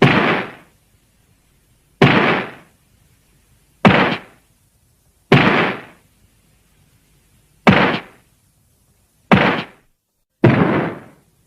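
Showa-era Godzilla film sound effect: a series of seven heavy booming impacts, each hitting sharply and fading over about half a second, spaced irregularly about one and a half to two seconds apart.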